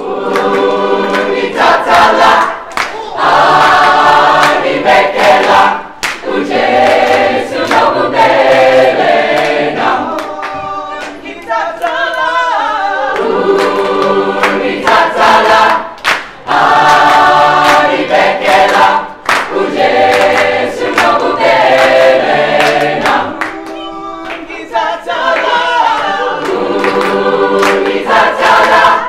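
A large mixed choir singing sustained chords in phrases, with short breaks between phrases.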